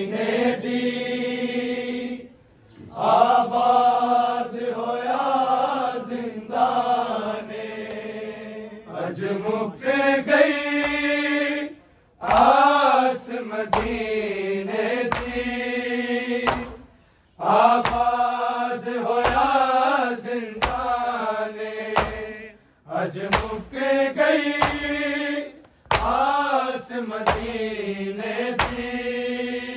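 Noha recitation: voices chanting a mournful lament melody in long phrases with brief pauses between them. From about halfway through, dull rhythmic strikes come roughly once a second, the chest-beating (matam) that keeps time with the noha.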